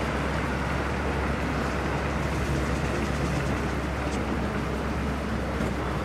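Steady low rumble of street traffic and vehicle engines, with no distinct events.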